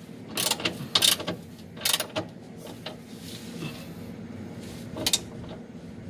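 Socket ratchet wrench clicking in four short bursts as bolts of the engine mount are worked, the pawl ratcheting with each back-swing.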